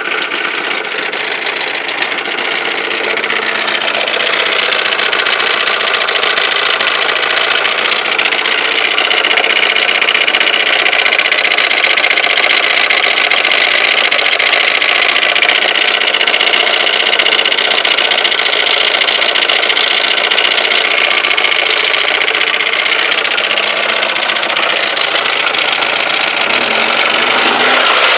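Mitsubishi Galant engine running steadily with a rapid knocking and ticking noise, the unidentified knock that the owner is asking about.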